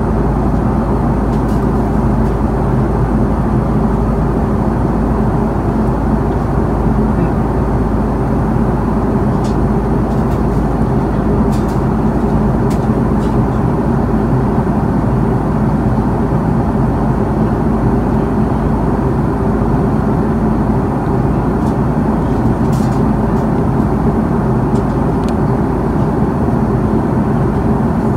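Steady in-flight cabin noise of an Airbus A330-300: constant engine and airflow noise at an even level, with a few faint ticks here and there.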